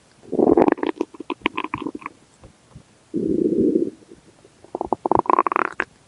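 Stomach growling in three bouts: a gurgling rumble with crackly pops, a short steady low growl about three seconds in, and near the end a gurgle that rises in pitch into a squeal.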